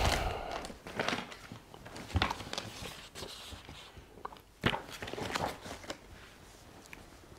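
Handling noises: irregular knocks and rustling as telescope parts and a paper instruction sheet are handled, with a sharper knock about a second in, another past the two-second mark and one near the middle.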